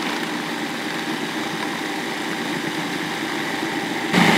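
Countertop food processor running steadily, its blades pureeing walnuts, soaked bread, garlic, cheese and olive oil into a thick paste. It gets louder near the end.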